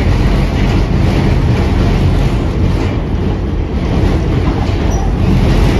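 An R46 subway train running along the track, heard from aboard: a loud, steady low rumble of wheels and motors.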